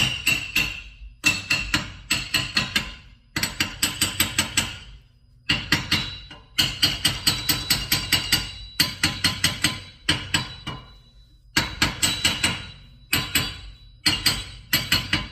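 Small hammer tapping a tight-fitting wheel spacer onto a car's rear hub to seat it, metal on metal: quick runs of light taps, several a second, separated by short pauses, each tap leaving a ringing metallic note.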